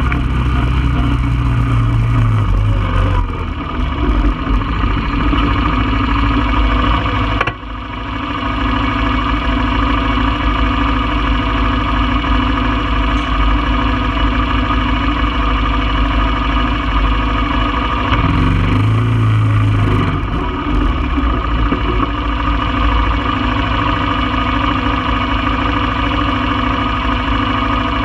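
1995 Honda Foreman four-wheeler's single-cylinder engine running: riding at the start, then idling steadily for a long stretch while stopped. It pulls away again with a low rumble about two-thirds of the way through.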